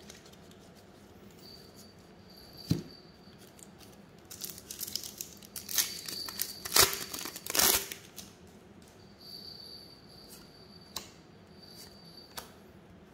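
A trading-card pack wrapper being torn open and crinkled: a run of sharp tearing and rustling bursts lasting about four seconds, starting around the middle, after a single light tap.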